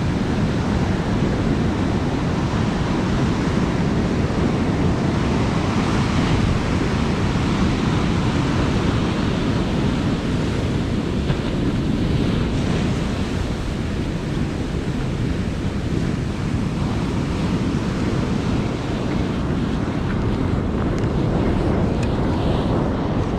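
Ocean surf breaking and washing up a sandy beach, mixed with steady wind rumbling on the microphone.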